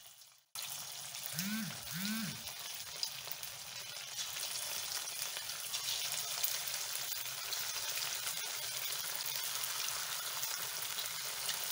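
Marinated, flour-coated chicken pieces deep-frying in hot oil in an iron kadai: steady sizzling and crackling that starts suddenly about half a second in. The oil bubbles harder as more pieces are dropped in.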